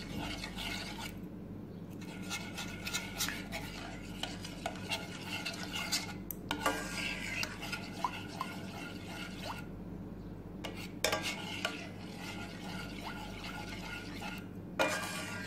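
Metal spoon stirring thick white sauce of flour and milk in a stainless-steel pan, scraping the bottom and sides with frequent light clinks, over a steady low hum.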